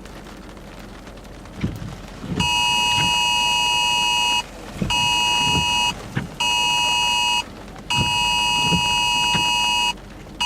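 A phone's emergency alert tone, a loud steady two-tone beep, begins about two and a half seconds in. It repeats the alert cadence: one long tone, two shorter ones with brief gaps between them, then a long tone again.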